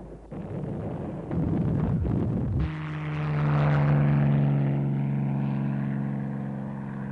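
A noisy rumble with a few sharp knocks, then, from nearly three seconds in, a steady, deep engine drone that swells and slowly fades.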